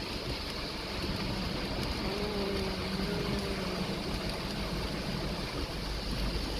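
Steady wash of heavy rain and flowing floodwater, with vehicle traffic moving through the water; a faint engine hum comes in about two seconds in.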